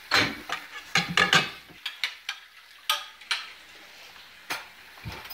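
Dishes, glasses and cutlery clinking as they are handled at the sink and loaded into a dishwasher rack: a cluster of sharp clinks in the first second and a half, then single clinks about three and four and a half seconds in.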